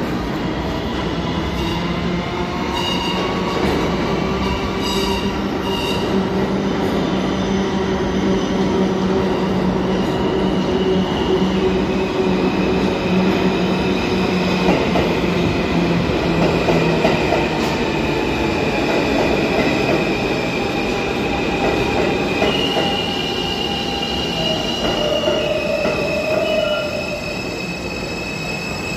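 New York City subway F train pulling into an underground station and braking along the platform: a continuous rumble of wheels on rail with a low steady hum through the first half, then high-pitched wheel squeal from about halfway in as it slows.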